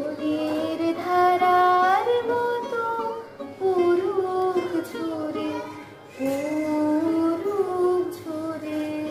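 A girl singing a slow Hindi song solo, drawing out long notes that slide and waver between pitches, with brief pauses for breath.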